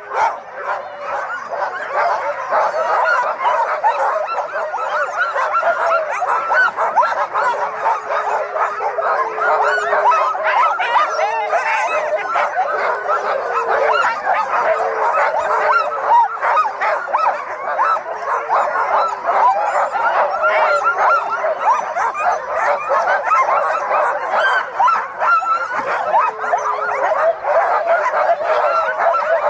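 Many sled dogs barking and yelping at once in a loud, unbroken chorus, with a few longer drawn-out calls among the barks. This is the excited clamour of a team being harnessed and hooked to the gangline, eager to run.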